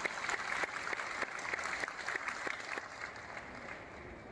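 Audience applauding with many hands clapping, the applause thinning out and fading in the last second.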